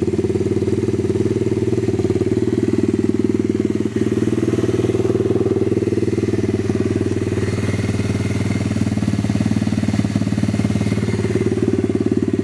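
Upgraded pit bike engine running with its silencer removed, idling steadily with a fast, even exhaust beat through the open pipe.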